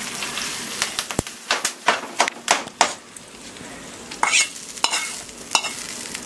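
Hot tempering oil with curry leaves and green chillies sizzling as it is poured from a small kadai into aviyal, with a run of sharp clicks and taps as the pan is scraped out with a spatula against the pressure cooker's rim.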